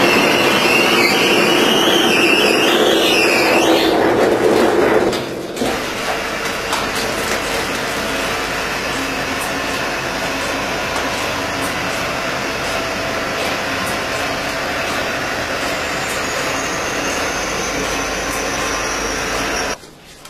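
Automatic cement plastering machine running on its mast: a steady mechanical rumble, louder for the first four seconds with a wavering high whine, then settling to an even hum.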